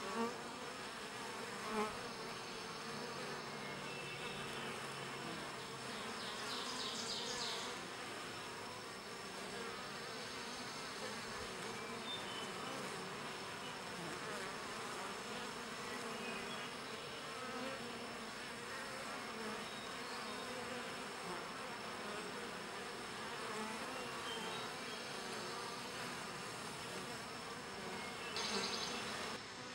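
Many honeybees buzzing steadily at a hive entrance. A brief high-pitched sound comes about seven seconds in and again near the end.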